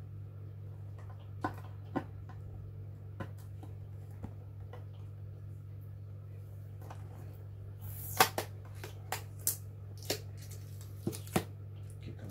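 Scattered clicks and taps of a clear plastic display box being handled and pried open, with a run of sharper clicks and crinkling from about eight to eleven seconds in. A steady low hum lies under it throughout.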